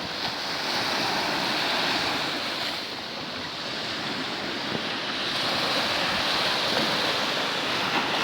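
Sea surf washing onto the beach, a continuous rush that eases about three seconds in and swells again in the second half.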